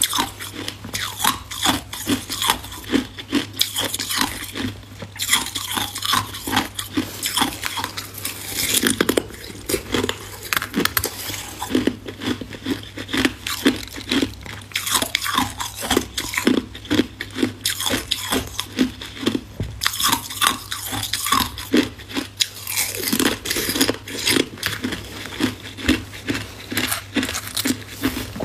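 Ice being bitten and chewed close to the microphone: a quick, dense run of sharp crunches as a chunk of clear ice breaks between the teeth.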